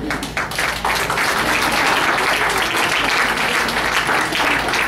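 Audience applauding: scattered separate claps at first that merge about a second in into steady applause.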